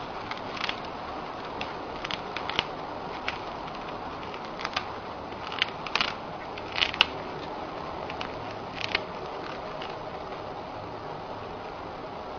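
Hamster nibbling a dry cracker: small, irregular crunches and clicks, bunched in the first nine seconds, over a steady background hiss.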